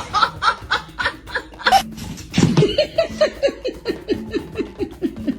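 Laughter: a long, rapid run of short 'ha' sounds, about four a second, starting high and sinking lower in pitch toward the end.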